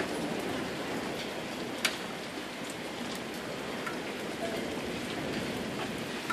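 Steady rain, with separate drops ticking close by; one sharper tick comes about two seconds in.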